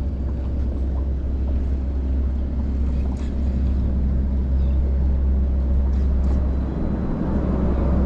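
Boat engine running steadily at idle, a low even rumble, with wind and water noise around it.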